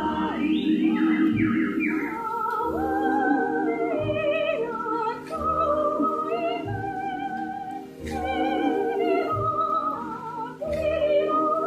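Show music: two high, warbling, whistle-like voices with a wide vibrato sing a slow melody together over a held accompaniment with a soft low pulse.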